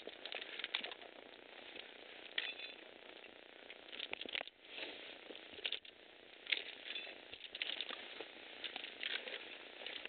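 Footsteps scrambling over rock and loose gravel: irregular scrapes, crunches and clicks of shoes on stone, with a steady hiss underneath.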